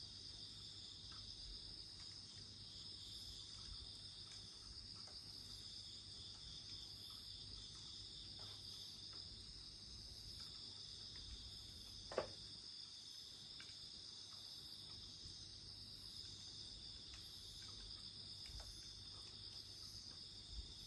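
Faint, steady chirping of insects with a pulsing rhythm. Over it come soft campfire crackles, and about twelve seconds in a single sharper pop from the burning wood.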